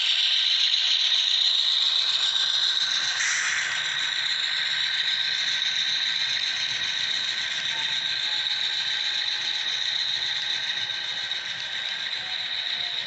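Model train freight cars rolling past on the track: a steady high whir and squeal of small wheels on rails with a light rattle, slowly getting quieter.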